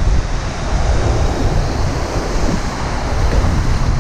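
Surf washing and foaming over a rocky reef ledge, with wind buffeting the microphone in a heavy low rumble. A wash of surf swells from about one to three seconds in.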